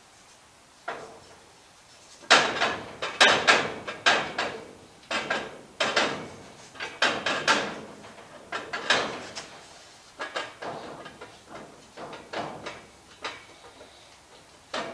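Irregular clanks, knocks and rattles of metal parts and tools being handled, in quick clusters for a few seconds and then more spread out.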